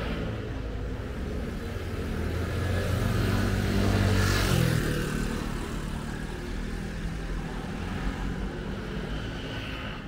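A motor vehicle drives past close by, loudest about four seconds in, its engine note dropping in pitch as it goes by, then fading.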